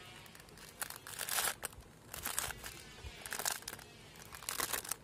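Clear plastic wrapping crinkling in about five short, irregular rustles as it is pulled off a set of glass bangles.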